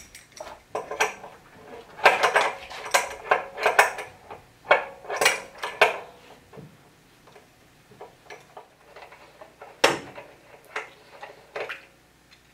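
Metal clinks, clatter and scrapes of the old flexible copper water line and its fitting being unscrewed and worked loose from the top of a water heater, busiest in the first half, with one sharp knock about ten seconds in.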